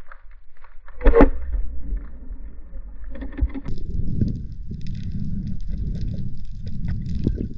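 Underwater recording: one sharp knock about a second in, then low rushing water noise with irregular surges as the spearfisher swims up toward the surface, with faint crackling above it.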